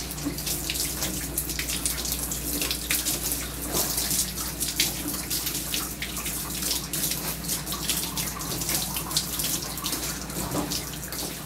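Handheld bath sprayer with a soft-spray nozzle cover running water over a wet German Shepherd's head, rinsing out shampoo. It is a steady hiss of spray with irregular splashing against the fur and tub.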